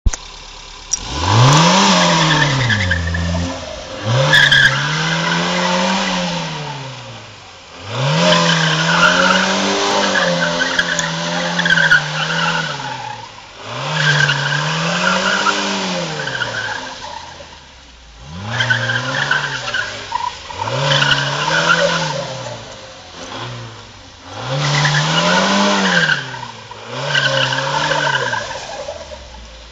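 FSO Polonez rear-wheel-drive car drifting on pavement. The engine revs up and falls back over and over, every two to three seconds, and the tyres squeal with each burst.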